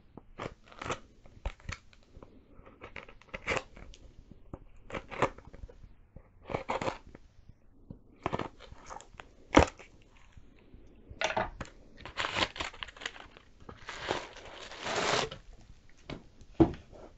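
A knife cutting and scraping around the end of a cardboard shipping tube in short, scattered strokes. In the last few seconds there are longer stretches of rustling as a bubble-wrapped package is pulled out of the tube.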